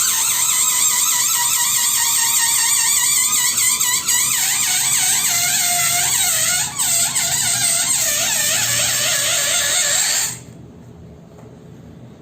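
Air squealing out through a stretched balloon neck as the balloon deflates: a loud, wavering high-pitched squeal that drops lower partway through and stops suddenly about two seconds before the end.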